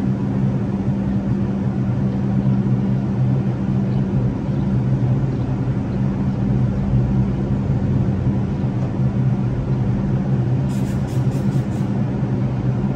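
Subway train standing still with its equipment running: a steady low drone made of two even tones over a noisy hum. A short rapid series of faint high ticks comes near the end.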